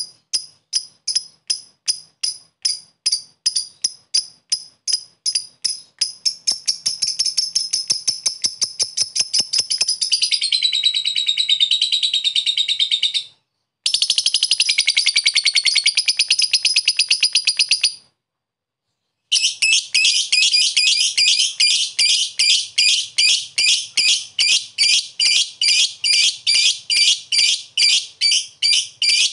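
Masked lovebird calling in a long 'ngekek' chatter: shrill chirps repeated about three a second that speed up into a continuous trill, break off twice briefly, then carry on as rapid chirps.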